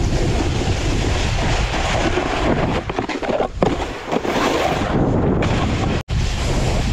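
Wind buffeting the microphone while a snowboard carves over hard, packed snow, its base and edges scraping steadily. About halfway through it eases to quieter, uneven scraping with a few sharp scrapes, then cuts out for an instant near the end.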